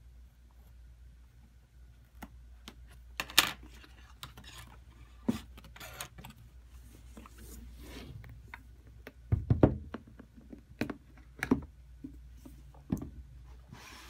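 Handling and opening a cardboard product box: scattered knocks, taps and scrapes of cardboard and packaging, with a sharp, loud knock about three seconds in and a cluster of knocks just before ten seconds.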